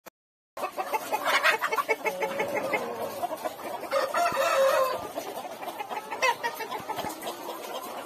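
Aseel (Peruvidai) chickens clucking and calling, with a rooster crowing once for about a second, roughly four seconds in.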